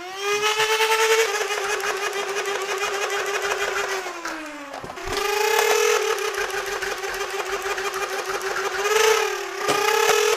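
Nerf Rapidstrike blaster with stock flywheel motors on three IMR batteries, revving and firing darts in full auto over the rapid clatter of its pusher. The motor whine climbs slowly at the start, slides down about four seconds in and climbs back just after five seconds, with another short dip near the end. The slow starting rev and the large RPM drop while shooting are the sign of stock motors' low torque and of batteries that can't deliver the current they need.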